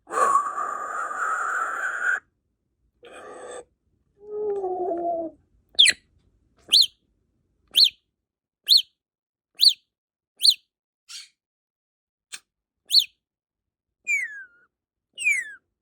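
African grey parrot vocalising: a harsh raspy noise lasting about two seconds, a short falling two-toned whistle, then a string of sharp, high, downward-sweeping chirps about once a second, ending with two longer falling whistles.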